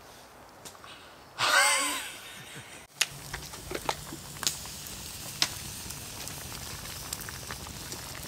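A short, loud vocal cry, then from about three seconds in a wood campfire crackling under cooking pots: scattered sharp pops and cracks over a steady low rumble.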